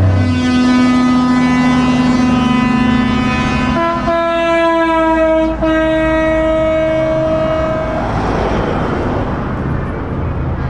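Vehicle air horns blowing long held notes: one low note for the first few seconds, then a higher chord of several notes from about four seconds in until about eight seconds in. Then the rushing of passing traffic.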